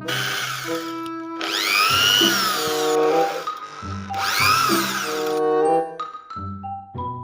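Toy electric power tool whirring in three runs, each a couple of seconds long, with a pitch that sweeps up and down, over light background music.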